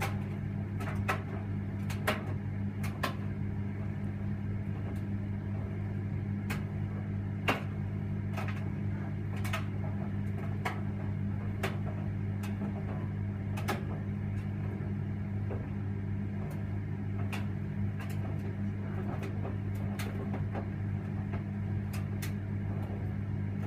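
Electra vented tumble dryer running: a steady motor hum with a sharp click roughly once a second as the load turns in the drum.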